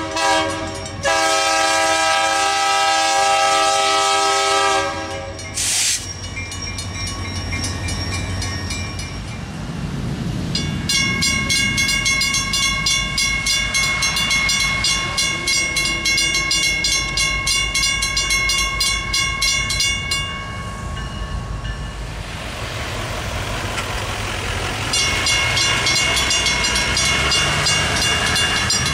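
Diesel locomotive horn blowing for about five seconds, with one short break. Then a mechanical railroad crossing bell strikes rapidly, about four strokes a second; it stops about two-thirds of the way through and rings again near the end.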